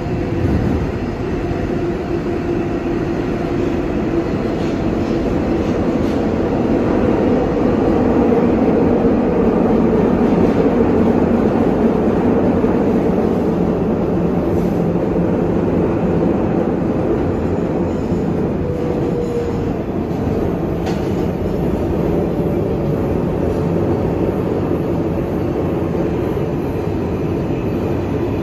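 R188 subway train running at speed, heard from inside the car: a loud, steady rumble of wheels on rail with a faint pitched whine over it.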